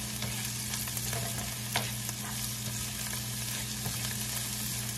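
Chopped onions, green peppers and minced garlic sizzling as they sauté in a nonstick frying pan, stirred with a plastic spatula that gives a few light scrapes against the pan. A steady low hum runs underneath.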